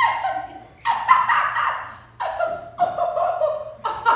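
A person's wordless vocal sounds in about five short bursts, roughly a second apart, over a steady low hum.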